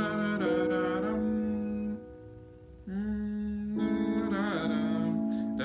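Sustained chords played on a keyboard, demonstrating the progression the chorus of this song usually uses. The chords are held, with a dip in level about two seconds in before the next chords come in.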